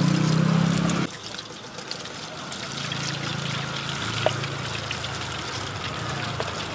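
Deep-frying oil sizzling and crackling steadily in a wok around egg-battered skewers of sempol ayam, with scattered pops. A low hum is loudest in the first second and cuts off suddenly about a second in, then returns more faintly.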